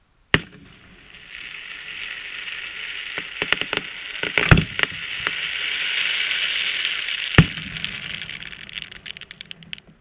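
Aerial firework display: a sharp bang just after the start, then a long crackling hiss from the bursting stars, with several more loud bangs. It trails off into scattered pops near the end.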